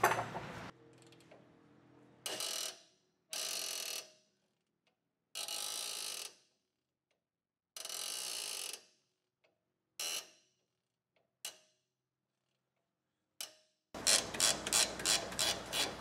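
Ratcheting wrench working the 18 mm nut of a sway bar end link: a series of short ratcheting bursts, each under a second, with pauses between, then a faster, steady run of clicks near the end.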